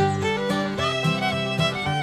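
Background music: a fiddle-led tune over a steady beat.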